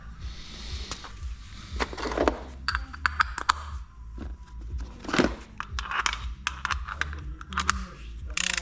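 Tools and metal parts being handled: a string of sharp metallic clinks and knocks at irregular intervals over a low steady hum.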